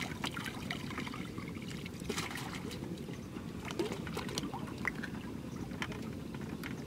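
Water trickling and splashing lightly as a man moves and ducks under in shallow river water. Scattered small drips and splashes, with a slightly fuller splash about two seconds in, over a low steady background rumble.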